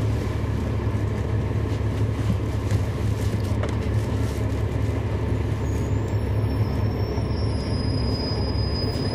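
Steady drone of a 2011 NABI 416.15 transit bus's Cummins ISL9 diesel engine, heard from inside the cabin while the bus is in service. A faint high whine joins about six seconds in.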